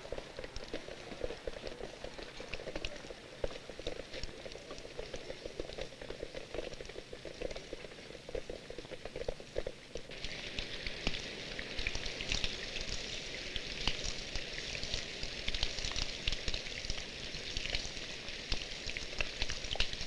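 Steady rain falling, a dense crackling hiss that grows brighter and fuller about halfway through as it strikes water.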